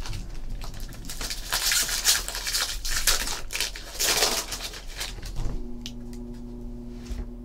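Foil wrapper of a 2014 Bowman Draft baseball card pack crinkling and tearing as it is ripped open, a dense run of crackles and rips. About five seconds in it eases off to the softer slide and rustle of the cards being handled, over a low steady hum.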